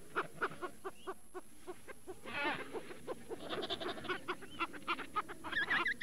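African penguins calling: a rapid run of short, bleating calls, with a longer drawn-out call about two seconds in and wavering higher calls near the end.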